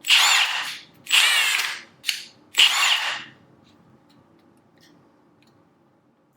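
Milwaukee M18 FUEL 2767-22 high-torque cordless impact wrench, brushless motor, run in four trigger pulls in about three seconds. It spins freely with no fastener, and each pull whines up in pitch and winds down; the third pull is brief.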